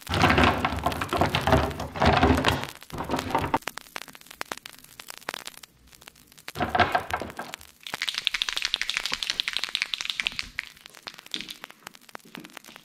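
Plastic paint markers clattering against each other and a wooden tabletop as they are tipped out of a pouch and spread by hand. This is heard as bursts of sharp clicks, with a run of quicker, lighter clicking later on.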